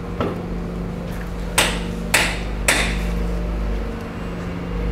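Driver's door of a 2004 Chevy Trailblazer being opened: a light click from the handle, then three sharp clunks about half a second apart as the latch releases and the door swings open.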